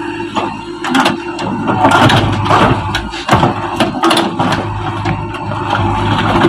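Diesel engine of a JCB backhoe loader running steadily. From about one to four and a half seconds in there is a dense run of crunching knocks, as the machine breaks down a wall.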